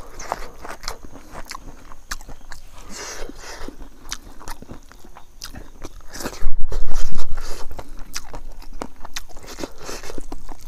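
Close eating sounds: a mouthful of rice and fish pickle chewed with wet clicks and crunches, and fingers mixing rice on a plate. About six and a half seconds in comes a loud, low rumble lasting about a second.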